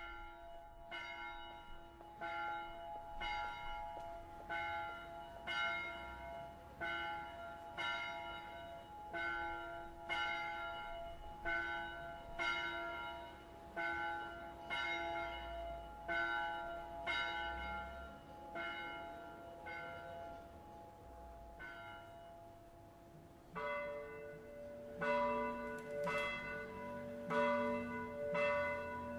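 Church bells ringing, struck in steady succession with long, overlapping hum. About 23 seconds in, a deeper, louder bell joins in.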